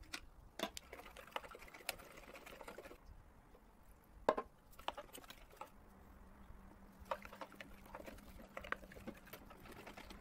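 Light knocks and clatter of plastic buckets and containers being handled, the loudest a little past four seconds in. A soft splashing of lye solution being poured into oil runs through the first few seconds.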